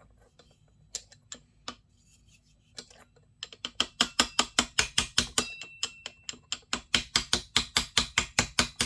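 A hand tool working metal on a McCulloch 1-85 chainsaw's clutch as it is freed. A few scattered clicks give way, after about three seconds, to a fast, even run of sharp metallic clicks, about five a second.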